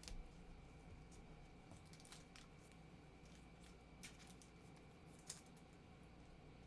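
Near silence, with a few faint, short clicks and taps from trading cards being handled on a table, the sharpest about five seconds in.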